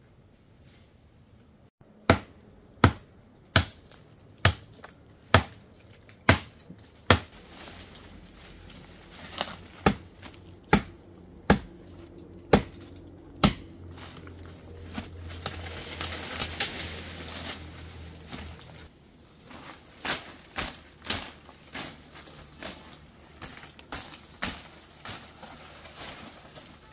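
Chopping blows, sharp knocks at a steady pace of roughly one a second, about a dozen in all; then a few seconds of rustling, then more strikes, less evenly spaced.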